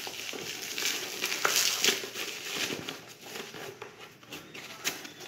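Plastic bubble wrap crinkling and crackling as it is handled and unwrapped, loudest about one to two seconds in.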